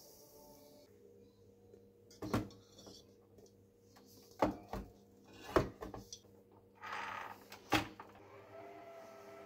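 Stainless steel mixing bowl knocking and clunking as it is handled and set onto a stand mixer, about five sharp metallic knocks spread over several seconds.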